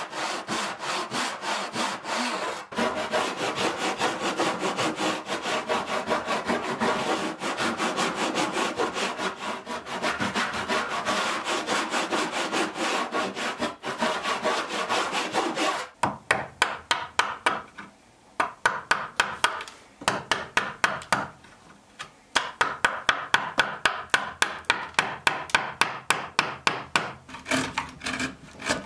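Hand back saw cutting along a pine board with quick, steady back-and-forth strokes. About 16 s in, the strokes turn sharper and come in short runs broken by brief pauses.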